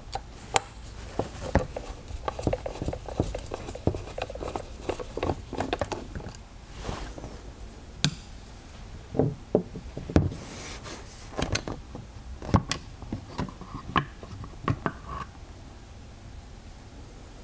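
Scattered small clicks, taps and knocks of a ball-end Allen driver working the stock screws and of an FX Wildcat air rifle's stock being handled and lifted off the action.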